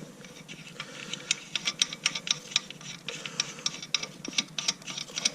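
Irregular light clicking and ticking, several clicks a second, like small metal parts or a hand tool being worked.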